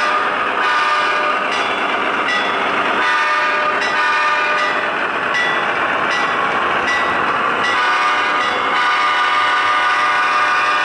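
Sound decoder of an HO-scale Broadway Limited Imports GE AC6000CW model locomotive blowing its multi-note diesel horn in a series of blasts, played through the model's onboard speakers, with the simulated diesel engine running underneath.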